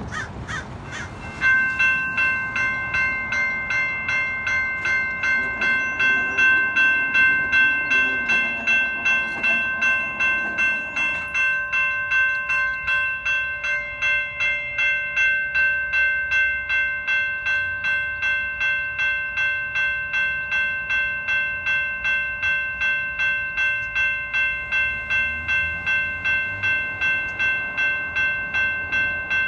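Railroad crossing warning bell ringing in rapid, evenly spaced strokes, starting about a second and a half in. It signals that the crossing is activated for an approaching train.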